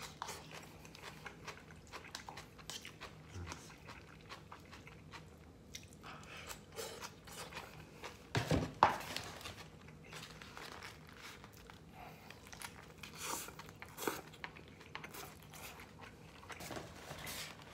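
Close-up chewing and crunching of coleslaw eaten with a plastic fork from a paper cup, with soft irregular clicks and rustles. A louder knock comes about eight and a half seconds in.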